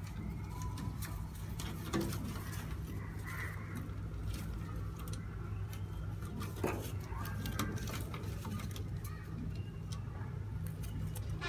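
Domestic high-flying pigeons in a loft cooing now and then over a steady low hum. Scattered sharp taps and clicks, the loudest about two seconds in and again a little past the middle.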